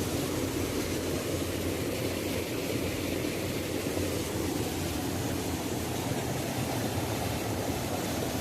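Waterfall: a steady, deep rush of falling water that holds at an even level throughout.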